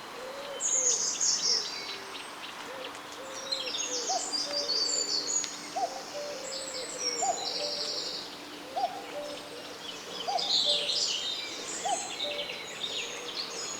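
Common cuckoo calling its two-note 'cuck-oo', a higher note falling to a lower one, repeated about every one and a half seconds from a few seconds in, with small songbirds twittering and trilling at a higher pitch.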